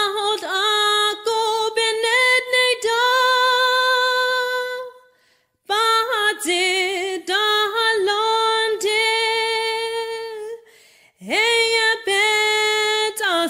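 A woman singing unaccompanied: a single voice in long, held notes, in phrases of about five seconds with short breaks between them.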